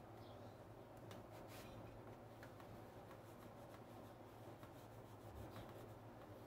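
Faint rubbing of a bare hand over the surface of a chalk-painted vase, with a few light ticks, over a low steady hum.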